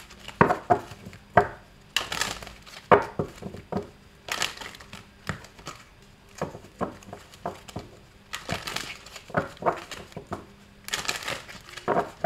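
Oracle cards being shuffled by hand: a run of sharp card snaps and clicks with a few longer sliding swishes, at about two, four and a half, nine and eleven seconds in.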